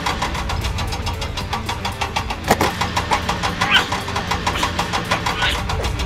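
Motor-vehicle engine running steadily with a rapid, even chugging, for a toy dump truck driving over sand, with a sharp knock about two and a half seconds in.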